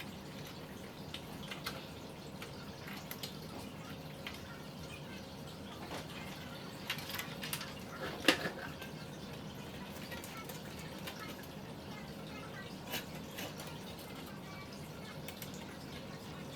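Faint scattered clicks and taps of PC parts and cables being handled, over a steady low hum, with one sharper click about eight seconds in.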